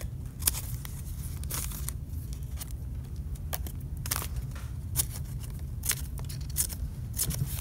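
Scissors snipping through construction paper, cutting slits into a fringe: a string of short, irregularly spaced snips.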